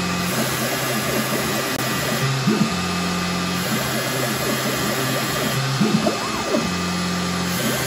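CNC machine engine-turning a metal plate: a steady motor hum, broken twice by rising and falling chirps as the head moves between spots.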